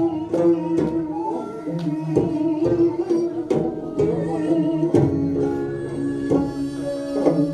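Korean traditional music accompanying a hallyangmu dance: a sustained, wavering melody line over regular drum strokes about two a second.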